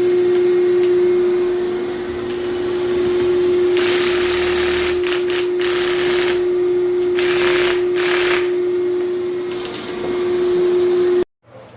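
An electric motor running steadily with one constant tone. Several short bursts of hissing noise come through from about four seconds in, and the motor cuts off suddenly near the end.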